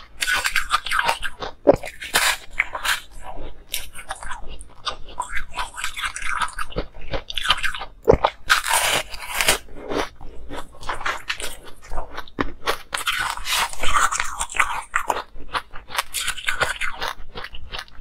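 A person biting and chewing a chunk of dyed frozen ice close to the microphone: dense, irregular crunching that goes on without a pause.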